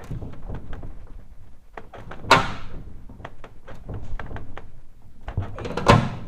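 Manual pop-rivet gun being squeezed repeatedly on a rivet in an aluminum jon boat, making a run of small clicks. Two louder sharp metallic clanks, about two seconds in and near the end, ring briefly through the aluminum hull.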